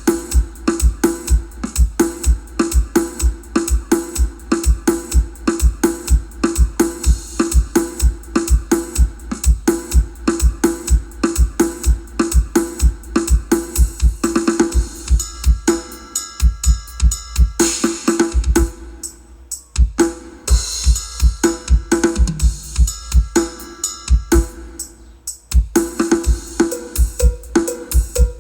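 Electronic music with a deep, steady kick-drum beat, about two kicks a second, with cymbals and synth tones over it. The beat drops out briefly twice, near the two-thirds mark and again a few seconds later.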